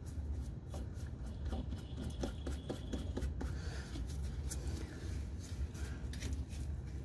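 Hands turning a black Sumo Spring bump stop onto its mounting bolt: a run of small scrapes, rubs and clicks over a steady low rumble.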